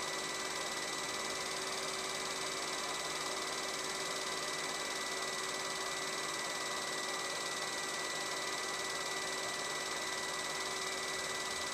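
Film projector running: a steady hum and hiss with a few constant high tones, unchanging throughout.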